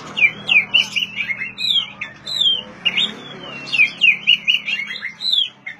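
Oriental magpie-robin (kacer) singing: a rapid, varied run of short whistled notes and down-slurred phrases that goes on without a break.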